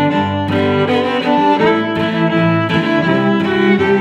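Background music: a string piece of held, overlapping notes that shift in pitch every second or so.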